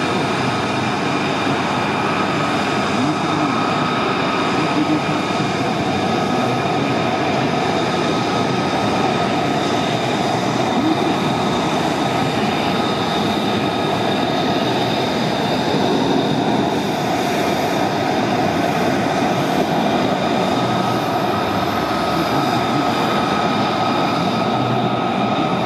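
Military aircraft engines running on the taxiway: a loud, steady noise with several constant high whining tones over it that never change.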